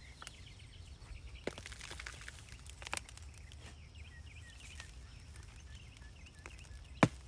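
Small birds chirping repeatedly in the background, over a low outdoor rumble, with a few scattered knocks from digging in the soil, the loudest near the end.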